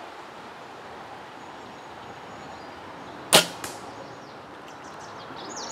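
A compound bow shot: one sharp, loud snap of the string as the arrow is released about three seconds in, then a fainter knock a moment later as the arrow strikes the 3D target. Birds start chirping near the end.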